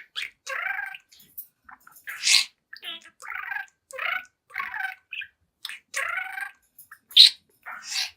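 Young budgerigar chattering in a quick run of short warbled bursts, like mumbled speech, broken by sharp high chirps, the loudest about seven seconds in.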